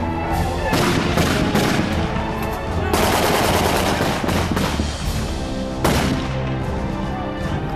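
Gunfire in rapid bursts and fusillades, densest through the middle, with one sharp single shot about six seconds in, over background music.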